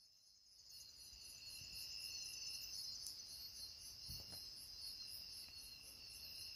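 Faint night insect chorus: crickets trilling steadily, with a regular pulsing chirp above the trill.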